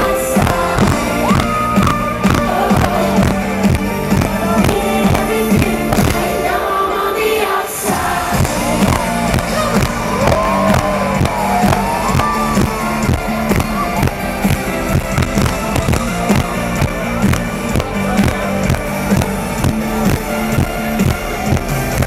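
Live electronic pop music played loud over a festival PA and heard from within the crowd: a steady four-on-the-floor kick drum about twice a second with bass and synth melody. The bass and beat thin out briefly about six seconds in, then come back.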